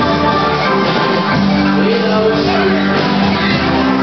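Live dance band playing at a steady loud level, with electric guitar, bass guitar and drums.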